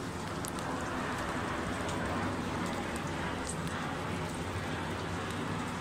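Steady rushing jet noise of an Airbus A350 airliner passing low overhead on approach, mixed with falling rain and a few faint ticks of raindrops.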